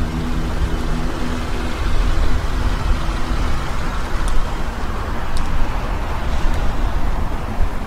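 A car moving slowly, a steady low rumble of road and wind noise.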